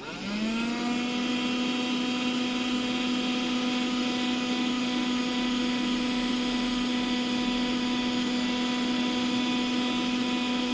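Vacuum cleaner switched on: its motor spins up in under a second and then runs at a steady, even whine.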